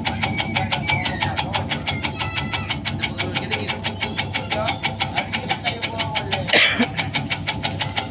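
Small water-pump engine running steadily, driving a steel-bladed tobacco-cutting machine, with a rapid, even pulsing. A brief louder sound cuts in about six and a half seconds in.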